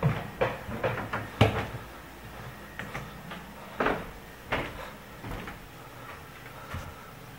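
Footsteps on wooden stairs. A quick run of knocks comes in the first second and a half, then slower, scattered steps follow.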